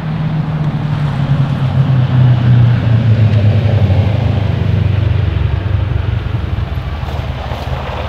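A vehicle engine running steadily, its pitch dropping slightly in the first couple of seconds and then holding, with a rushing noise over it.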